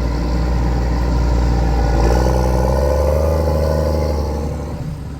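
Case IH Puma tractor engine running, heard from the cab, with a steady low hum that swells louder about two seconds in and eases off near the end.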